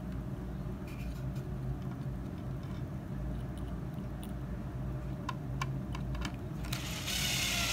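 Faint small clicks and taps of hands setting small screws and a gyroscope board into a hoverboard's metal chassis, over a low steady hum. A rushing noise builds up near the end.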